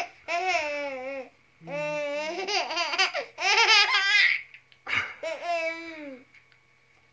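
Baby laughing in four high-pitched bursts of about a second each.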